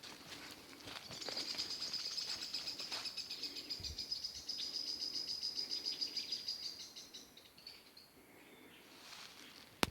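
A high, rapid trill, even in pitch, starts about a second in and runs for nearly six seconds: the call of a forest creature. One sharp click near the end.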